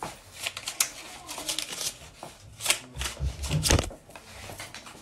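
Irregular clicks and rustling from a person moving close to the microphone in a small room, with a heavier low thump about three and a half seconds in.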